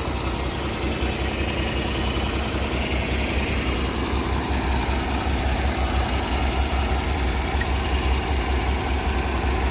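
Large farm tractor's diesel engine running steadily, with a deep low rumble.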